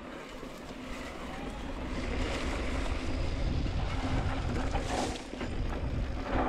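Wind rushing over a chest-mounted camera's microphone and tyres rolling on a dry dirt singletrack as a mountain bike descends. The rush grows louder about two seconds in, and the bike knocks over bumps a couple of times near the end.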